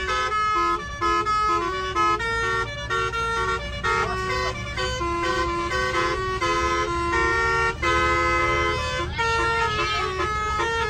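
Bus telolet musical air horn playing a quick tune of stepped, held notes, over low engine and road rumble.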